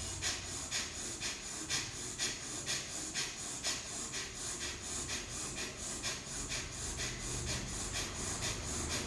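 Rapid, forceful breathing in and out through the right nostril with the left held closed (single-nostril bhastrika pranayama): sharp nasal strokes at a steady pace of about two a second.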